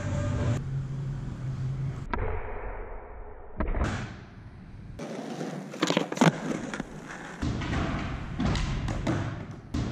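Skateboard wheels rolling on a smooth concrete floor, with several sharp pops and landing slaps of the board as flatground tricks are done. The sound changes abruptly a few times between short takes.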